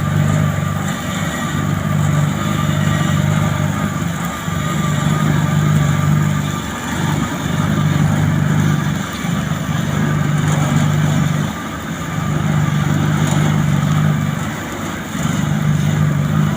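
Heavy road-paving machinery's engine running steadily, with a short dip in its sound every two to three seconds, over a faint steady whine.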